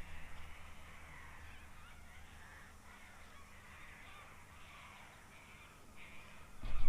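Faint birds calling over quiet riverside ambience. A much louder low rumble starts near the end.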